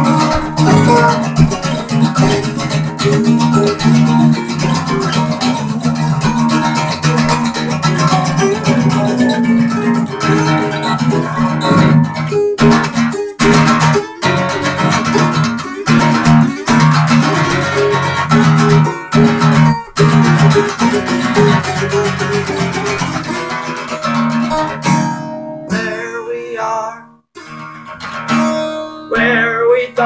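Two acoustic guitars strummed and picked together in an instrumental passage. The playing thins out about 25 seconds in, drops away briefly, then picks up again near the end.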